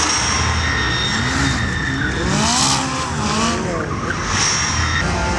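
McLaren sports car's twin-turbocharged V8 revving up and down repeatedly while the car spins donuts, its rear tyres squealing and skidding as they burn.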